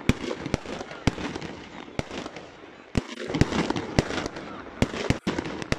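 Aerial firework shells bursting overhead in a rapid, irregular series of sharp bangs, about a dozen over a few seconds.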